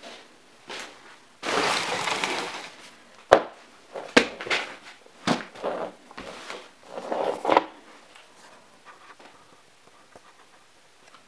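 Rustling of plastic packaging and a cardboard box, then several sharp knocks as items, among them a metal tin, are set down on a wooden floor.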